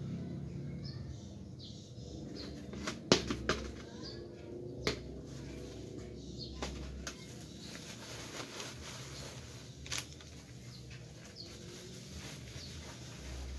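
Plastic bags rustling and pots and plants being handled, with a few sharp knocks, the loudest a quick cluster about three seconds in. Short bird chirps in the background.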